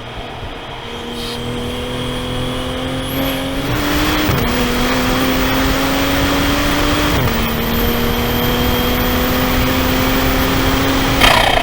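Turbocharged Toyota GR Supra (A90) engine heard from inside the car, accelerating hard through the gears: its pitch climbs steadily, drops at an upshift about three and a half seconds in and again about seven seconds in, and climbs again each time. Near the end there is a sudden loud rush of noise as the pull ends.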